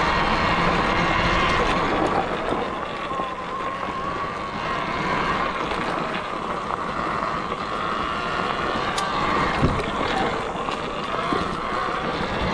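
Talaria Sting electric dirt bike ridden along a dirt trail: a motor whine rising and falling with speed over tyre and ground noise, with wind buffeting the microphone. A single knock comes about ten seconds in.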